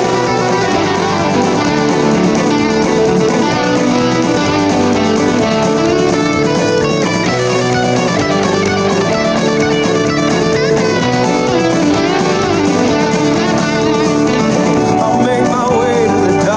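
Guitar music with plucked and strummed strings, playing steadily throughout.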